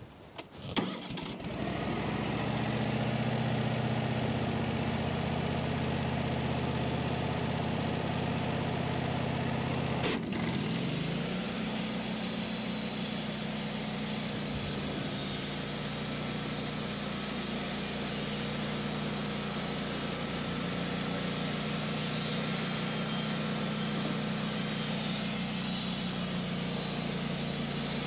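Wood-Mizer LT15 portable sawmill engine starting about a second in and running steadily. About ten seconds in there is a click and the engine note changes, with more high hiss after it.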